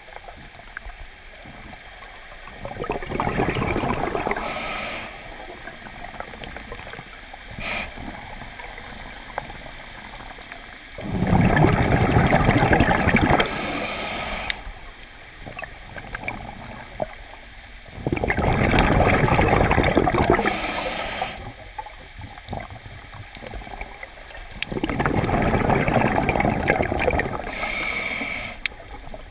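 Scuba diver breathing through a regulator underwater: four long bubbling exhalations, each followed by a short hissing inhalation, repeating about every seven seconds.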